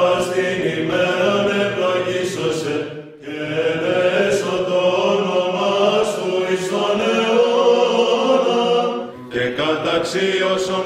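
Unaccompanied Byzantine chant by Orthodox monks: men's voices singing long, steady notes together. There is a brief break about three seconds in and a short dip near the end.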